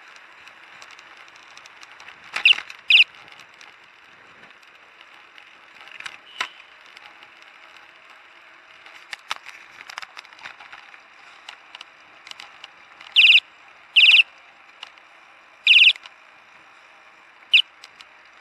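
Steady wind and tyre noise from a bicycle ride, broken by short, loud, high-pitched tones: two about two seconds in, two more about thirteen seconds in, then two single ones near the end.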